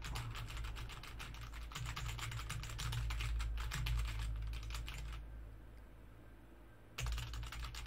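Typing on a computer keyboard, rapid keystrokes picked up as background noise by a desk USB microphone. The typing stops about five seconds in and resumes about two seconds later, over a low steady hum.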